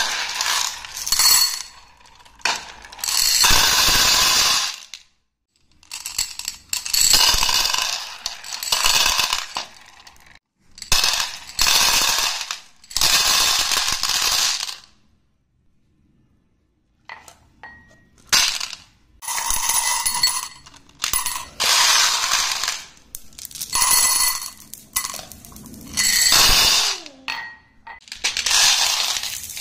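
Glass marbles clinking and clattering together in a glass tumbler and a plastic bowl, in repeated bursts of one to two seconds, with a brief silent pause about halfway through.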